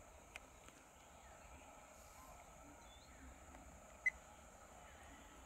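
Faint outdoor ambience: a steady high hiss with a few brief chirps, the loudest a short sharp chirp about four seconds in.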